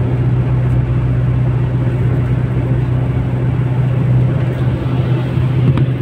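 Steady drone inside the cabin of a moving vehicle: a constant low engine hum under an even rush of road noise.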